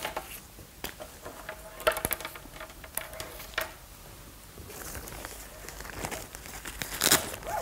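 Fabric of a pop-up travel cot rustling and crinkling as it is handled, with a few light clicks and taps, heaviest about seven seconds in.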